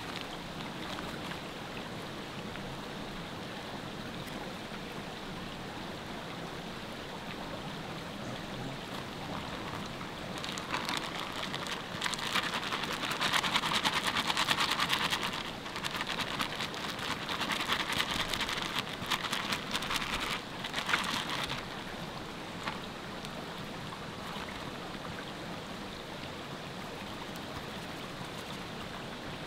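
River water flowing steadily. Through the middle third a much louder crackling hiss with many sharp clicks rises over it, breaking off briefly partway through.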